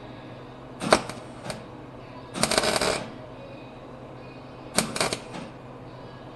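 Wire-feed welder arc crackling in short sputtering bursts as tack welds are laid: a brief tack about a second in, a longer burst of about half a second around two and a half seconds, and another near five seconds. The tacks are coming out ugly, which the welder blames on kinks in the feed-wire cable.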